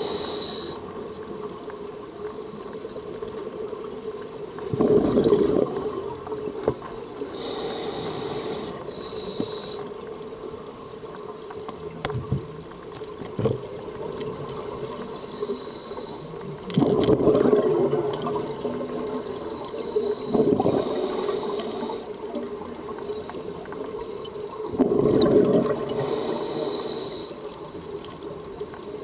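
Scuba breathing through a regulator, heard underwater: several breaths, each a hiss of air drawn through the regulator, then a loud bubbling rush of exhaled air.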